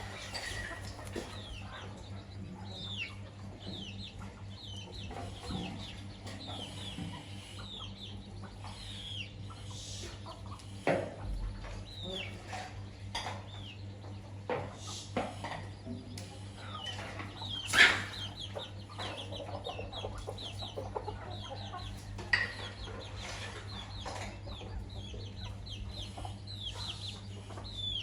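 Chickens feeding: a hen clucking and chicks peeping in many short, high, falling chirps, with a few sharp knocks, the loudest past the middle. A steady low hum runs underneath.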